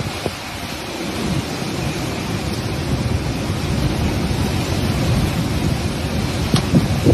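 Typhoon-force wind blowing hard, with gusts buffeting the microphone, and a couple of sharp knocks near the end.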